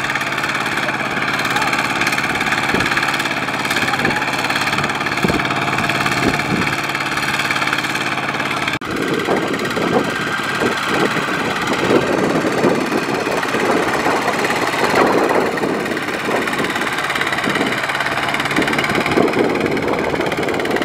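Two-wheel walking tractor's single-cylinder diesel engine running under load as it drags a loaded rice trailer through deep mud, steady at first. After a brief break about nine seconds in, it sounds rougher and more uneven.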